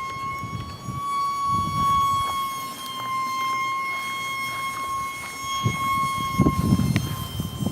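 Micro electric ducted fan of a brushless RC F-86 Sabre jet whining at a steady high pitch in flight. Gusts of wind rumble on the microphone underneath.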